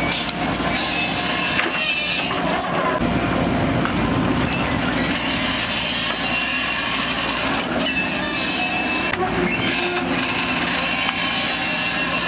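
Demolition work: a machine's engine running steadily under continuous scraping and clattering of rubble and metal, with high metallic squeals now and then.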